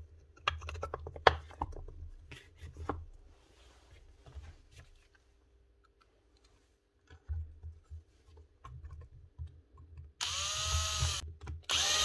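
Cordless drill-driver whirring in two short bursts near the end, its motor pitch dipping and recovering as it drives screws back into a magnetic drill's casing. Earlier there are a few light clicks and knocks of parts being handled.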